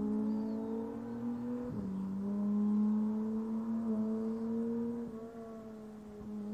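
McLaren Artura GT4 test car's twin-turbocharged 3.0-litre V6 accelerating hard, its pitch climbing and then dropping sharply at two upshifts, about two seconds in and again about five seconds in.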